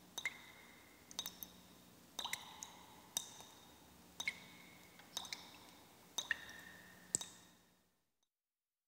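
Faint sharp clicks, about one group a second and some in quick pairs or threes, each leaving a short high ringing tone. A low hum lies under them, and the whole fades out shortly before the end.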